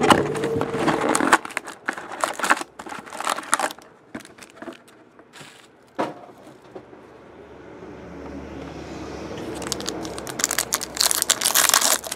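Hands rustling a cardboard trading-card box and foil-wrapped card packs, with one sharp knock about six seconds in. Near the end comes loud crinkling as a foil card pack is torn open.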